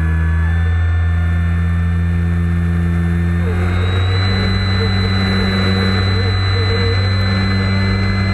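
Onboard sound of an SBACH 342 RC aerobatic plane's electric motor and propeller, a steady low drone. About three and a half seconds in, its pitch steps up and a high motor whine joins in as the throttle is opened.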